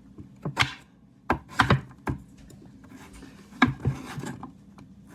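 Kitchen knife cutting carrots on a cutting board: sharp chopping knocks of the blade hitting the board, irregularly spaced, a cluster early on, a pause, then a few more.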